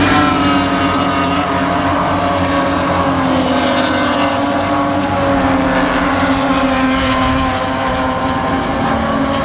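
BMW E30 race car's straight-six engine running hard at high revs under load, its pitch nearly steady with a couple of small dips and recoveries.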